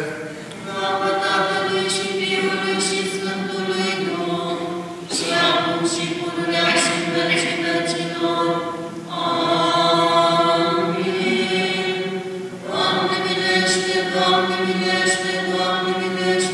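Orthodox church choir singing unaccompanied liturgical chant in long held phrases, with fresh phrases starting about five, nine and thirteen seconds in.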